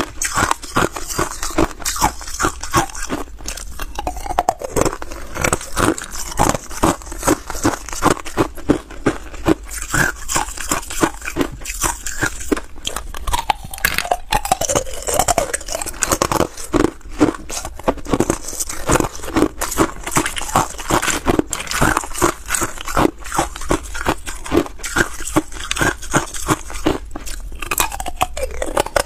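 Hard ice cubes being bitten and chewed close to the microphone: rapid, irregular cracking and crunching, several crunches a second with brief pauses.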